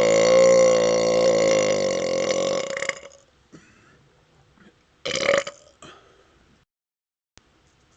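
A man's long belch, fuelled by gas from chugged Pepsi, held at a steady deep pitch that wavers slightly and ends about three seconds in. A short second burp follows about five seconds in.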